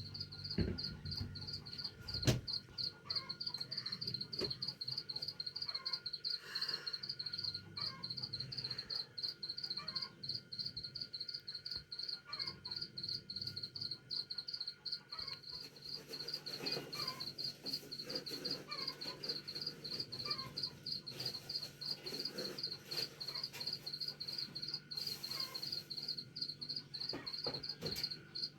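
Crickets chirping in a steady, rapid, even pulse, with fainter scattered chirps beneath. A single sharp knock comes about two seconds in.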